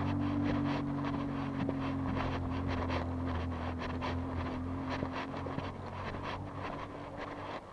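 Footsteps of a person walking on a street, about two steps a second, over the low steady drone of a motor vehicle's engine that slowly fades away.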